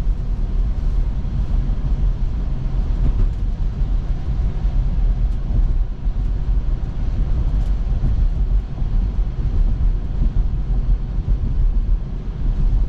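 Steady low rumble of tyre and road noise from a Tesla electric car driving along.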